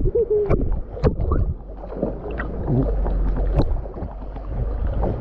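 Pool water splashing and sloshing close to the microphone as a Pembroke Welsh Corgi dog-paddles, with scattered sharp splashes and clicks. A short steady whine is heard in the first half-second.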